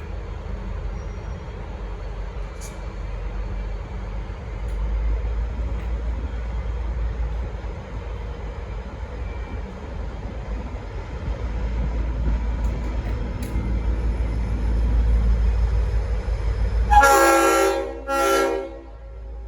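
V/Line N class diesel-electric locomotive N463 running with a low engine rumble that builds as it pulls away. Near the end come two short blasts on its Leslie RS5T five-chime air horn.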